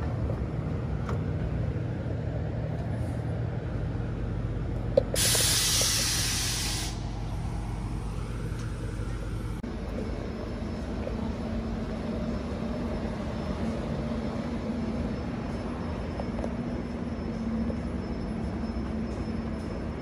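Alstom C-series electric railcar standing with its onboard equipment humming steadily. About five seconds in, a sharp click and then a loud hiss of compressed air venting from its pneumatic brake system for about two seconds. Near the halfway point the hum changes to a steadier drone with a low tone.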